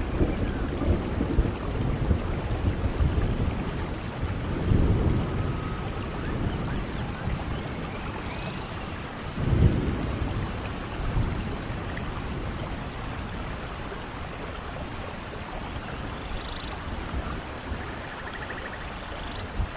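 Steady rain with low rolls of thunder, one about five seconds in and a louder one about halfway through.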